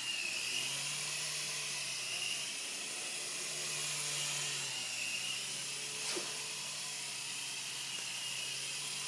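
Micro three-channel electric RC helicopter in flight: its small motors and rotors give a steady high whine over a low hum. The pitch rises and falls slightly as the throttle changes.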